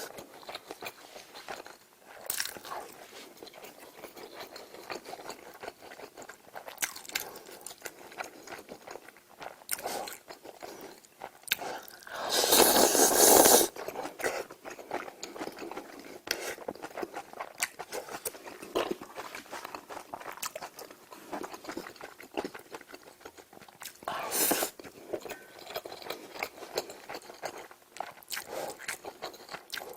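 A person eating close to the microphone: chewing and biting with many small wet clicks, and a louder rush of eating noise lasting a second or so about halfway through, with a shorter one near the end.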